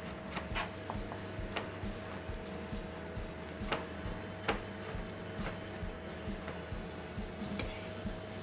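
Kitchen knife cutting cucumber into julienne on a cutting board: sharp, irregular clicks of the blade striking the board, some louder than others. A steady low hum with a thin tone runs underneath.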